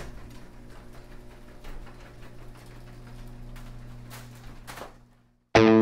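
A steady low hum with faint scattered clicks fades out about five seconds in. After a brief silence, loud distorted electric guitar music starts near the end.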